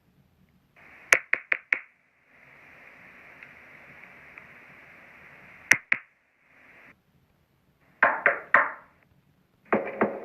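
Door knocking sound effect: a quick group of four knocks, a steady hiss, two more knocks, then three heavier knocks, and a fast run of knocking begins near the end.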